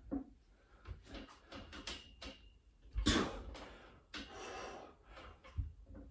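Hard, heavy breathing of a man straining on a free-standing pull-up bar as he grinds out his last reps, with a few low knocks from the bar station.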